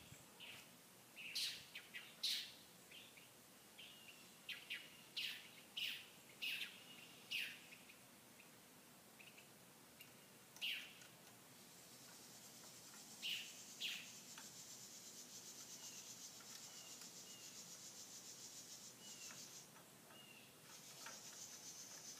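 Faint birds outdoors giving short, sharp chirps again and again through the first half. From about halfway through, a steady high-pitched pulsing buzz comes in.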